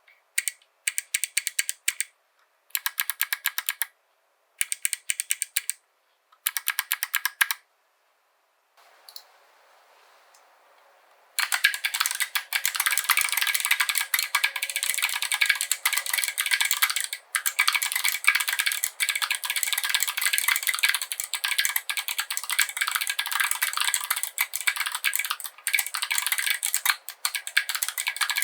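Mechanical keyboard with clicky Kailh BOX Jade switches and SA keycaps being typed on: a few short bursts of keystrokes separated by pauses, then a few seconds of near quiet, then steady fast typing from about eleven seconds in.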